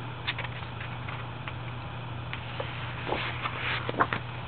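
A page of a glossy photobook being turned by hand: a short paper rustle and slide with a couple of soft clicks about three seconds in, over a steady low hum.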